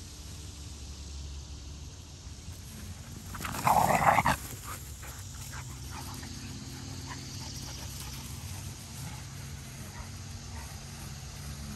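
Goldendoodle puppy giving a short burst of loud barking during rough play, about three and a half seconds in; otherwise only faint background.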